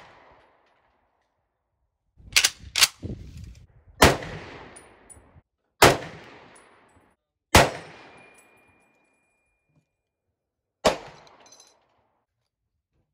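M1 Garand rifle firing commercial .30-06 hunting ammunition: about six sharp shots, the first two half a second apart and the rest one to three seconds apart, each trailing off in a short echo. A thin ringing tone hangs on for about two seconds after one shot.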